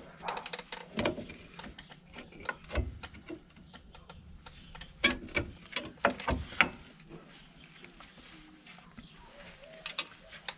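Irregular metal clicks and clanks of drum brake shoes and their springs being handled and fitted on the backing plate of a Ford Transit MK6's rear brake. The clatter is busiest about halfway through, with a last sharp click near the end.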